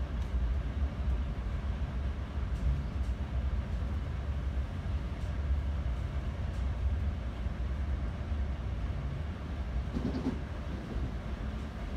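Inside a Bombardier MultiLevel passenger car of a moving train: a steady low rumble of the car running on the rails, with a few faint scattered clicks.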